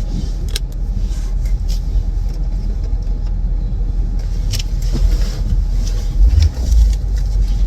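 Car running, heard from inside the cabin: a steady low rumble with scattered clicks and two heavy thumps about six and a half seconds in.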